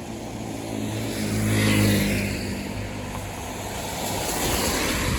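A car passing close by: engine hum and tyre noise swell to a peak about two seconds in and fade, with a second, weaker swell of traffic noise near the end.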